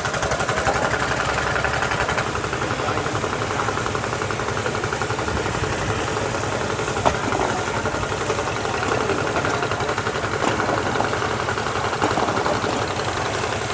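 Engine of a water pump running steadily at an even speed, with a regular knocking beat, driving the hoses used to wash flood mud off the ghat.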